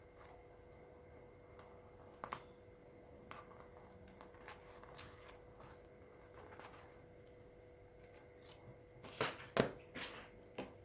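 Paper rustling and crinkling as a sheet of red paper is wrapped around a cardboard toilet-roll tube, with a few louder crackles near the end.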